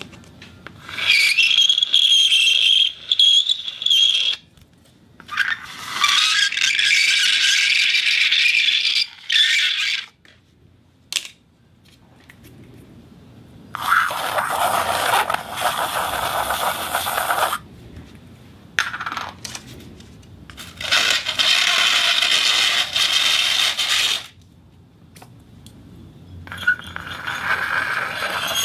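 Various materials scraping against a spinning turntable: five separate scraping passages of a few seconds each, with short clicks and rattles in the quiet gaps between. The first passage carries a steady high squeal.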